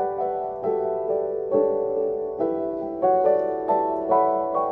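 Background music: a gentle piano melody of single notes, about two to three a second, each ringing and fading.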